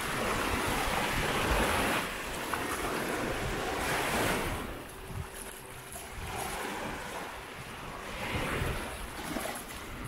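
Sea waves breaking and washing up a sandy beach, the wash swelling and easing every few seconds, with wind buffeting the microphone.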